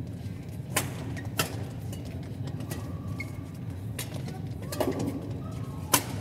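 Badminton rackets striking a shuttlecock during a doubles rally: sharp hits, two of them about a second in and the loudest near the end, with short squeaks of shoes on the court over a steady hall hum.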